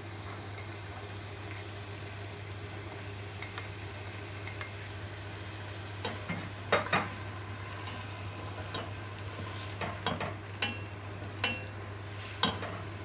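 Chopped red onion sizzling in hot ghee in a stainless steel pot. From about six seconds in, a spatula scrapes and knocks against the pot a few times as the onion is stirred.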